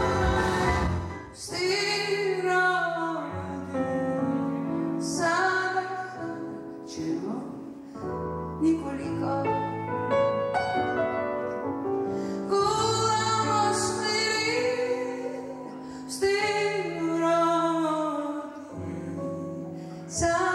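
A live band plays a slow song under a female lead vocal. Held bass notes change every second or two beneath the bending sung melody.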